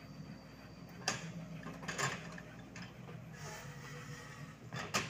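Sany SY55C mini excavator's diesel engine running steadily while it digs, with sharp metallic clanks of the bucket and boom linkage: one about a second in, another at two seconds, and the loudest near the end.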